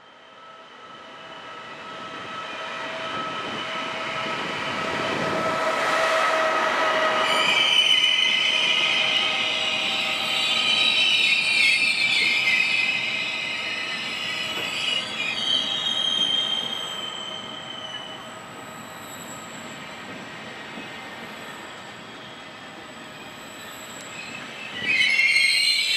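Trenitalia double-deck electric regional train coming out of a tunnel and pulling into the station. Its running noise builds for several seconds with a steady whine, then its wheels and brakes set up high-pitched squeals as it slows past. The squeal fades into quieter rolling, and a fresh squeal starts near the end.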